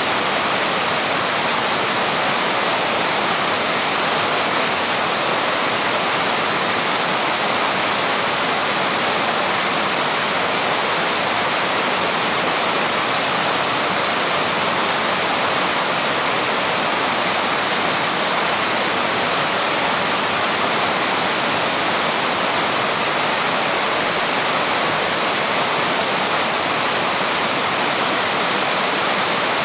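Waterfall: water pouring steadily over the falls, an even, unbroken rushing hiss.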